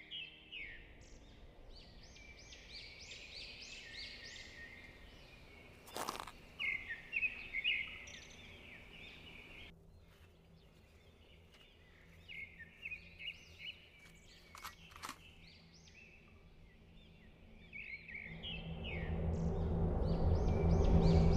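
Small birds chirping and singing in repeated bursts over quiet woodland ambience, with a sharp knock about six seconds in and another about fifteen seconds in. Low, steady music swells in over the last few seconds and becomes the loudest sound.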